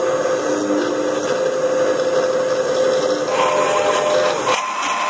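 CNC router spindle running with a steady whine while its tapered bit carves a 3D relief into a wooden board. About three seconds in, the sound shifts, with higher tones coming in.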